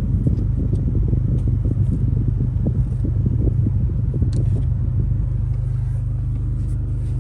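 A long Phillips screwdriver clicking and scraping against the screws and plastic of a wiper switch on a steering column, over a steady low rumble. The clicks are dense at first and thin out after about five seconds.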